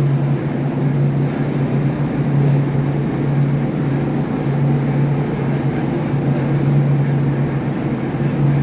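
Ship's engine-room machinery running steadily: a loud, constant deep hum under an even mechanical rush.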